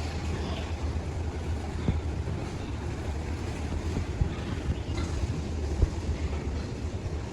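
A machine running with a steady low hum, with a few faint knocks over it.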